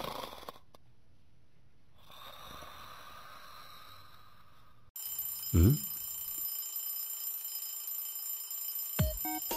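Cartoon sound effects: a snoring sound, then, about five seconds in, a steady high electronic ringing like an alarm, with a loud, sharply falling swoop. Electronic music with a beat starts near the end.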